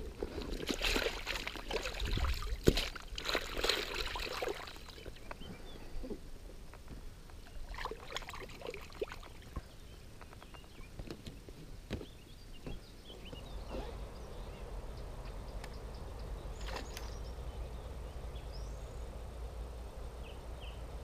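Rustling and sharp knocks of gear being handled on a float tube's mesh apron for the first few seconds, then scattered knocks. From a little past the middle, steady low water sloshing against the float tube's inflated hull as it moves through the water.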